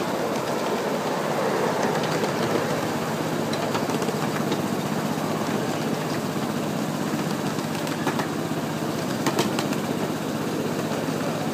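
Ride-on miniature railway train running along its track: a steady rumble of steel wheels on the rails, with a couple of sharp clicks about eight and nine seconds in.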